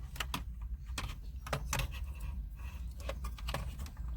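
Irregular light clicks and plastic rattles from a car stereo's wiring connectors and dashboard face panel being handled, over a steady low hum.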